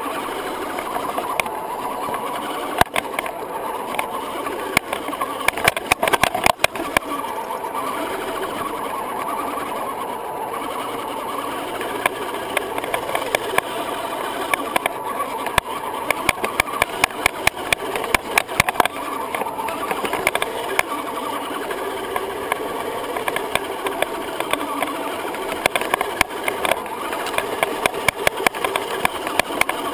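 Axial SCX10 Honcho 1/10-scale electric RC crawler on the move: a steady whine from its electric motor and gear drivetrain that wavers a little in pitch with the throttle. Frequent clicks and knocks run through it as the chassis jolts over dirt and ruts.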